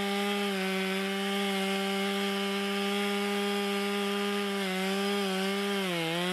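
Stihl two-stroke chainsaw running at high revs while cutting into the wood of a stump. The engine pitch sags briefly a few times, most deeply near the end, as the chain loads up in the cut, then recovers.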